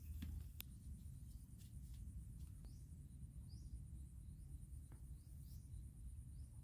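Quiet riverbank ambience: a faint low rumble with a thin steady high tone, a few short rising bird chirps, and an occasional faint click.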